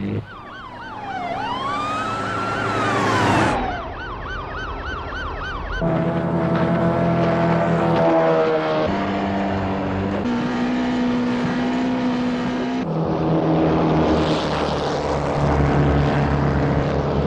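A police siren wailing up and down, then switching to a fast repeating yelp, for roughly the first six seconds. After that come the engines of speedboats racing at full throttle: a steady drone whose pitch jumps several times.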